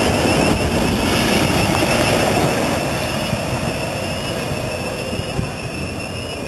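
Freight wagons rolling past on the rails, with a steady rumble and a wavering high squeal from the wheels, fading after a couple of seconds as the train moves away.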